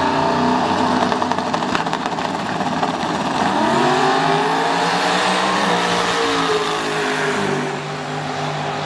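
Drag race car engine running loud and steady, its pitch rising about three and a half seconds in and falling away again toward the end.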